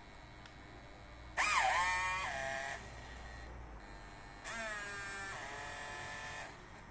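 Steam-locomotive whistle played by the mXion SX6 sound module through the small loudspeaker of an LGB 'kleine Dicke' G-scale model locomotive. There are two whistle blasts about three seconds apart. The first and louder blast dips in pitch, then rises and holds. The second glides down and holds for about two seconds.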